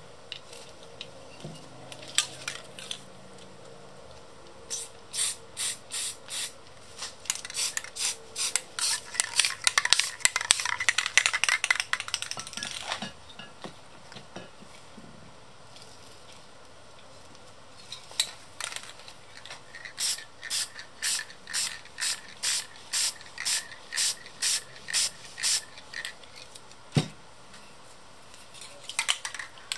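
Aerosol spray-paint can sprayed in short puffs, about two a second, in two runs with a few seconds' pause between; in the first run the puffs crowd together into a longer hiss for a couple of seconds.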